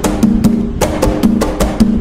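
Atabaque hand drums playing the Umbanda toque nagô rhythm: sharp pitched drum strokes at about four a second in a repeating pattern.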